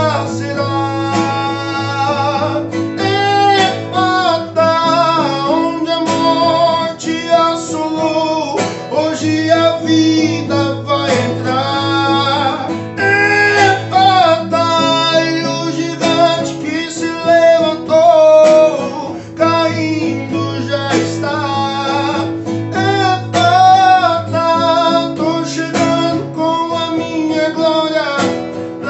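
Acoustic guitar strummed continuously while a man sings a hymn along with it.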